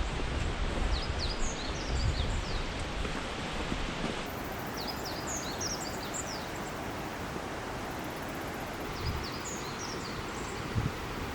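A songbird singing three short phrases of quick, high, falling chirps a few seconds apart, over a steady rushing background, with low wind rumble on the microphone in the first few seconds.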